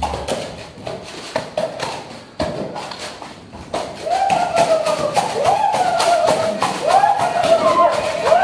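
Background music with a tapping, clicking percussion beat. From about four seconds in, a held melody line joins, sliding up into each long note.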